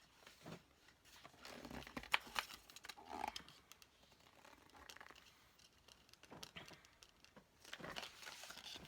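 Plastic packaging crinkling and rustling as it is handled, in irregular bursts with a few sharp clicks, loudest about two seconds in and again near the end.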